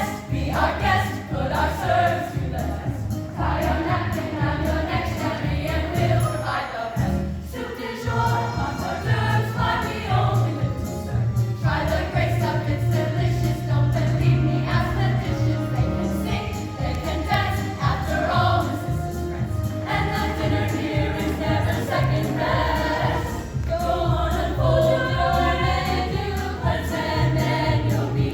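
High school choir singing a medley in several parts over an accompaniment with a steady low beat.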